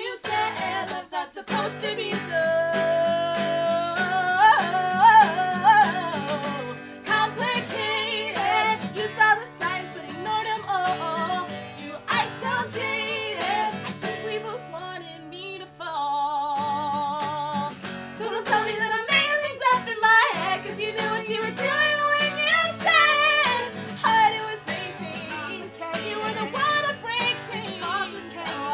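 Acoustic guitar strummed as accompaniment while two women sing, with a wavering held note about halfway through.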